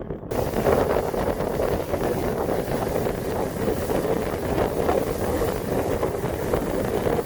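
Wind buffeting the microphone over a fishing boat running under way. The sound starts suddenly just after the beginning and stays steady throughout.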